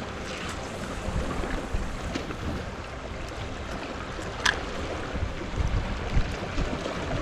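Sea waves washing over shore rocks, with wind rumbling on the microphone. A single short sharp tick about four and a half seconds in.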